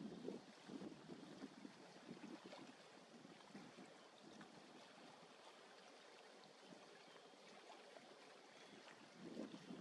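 Quiet shoreline ambience: faint water lapping and trickling among rocks, with low gusts of wind on the microphone at the start and again near the end.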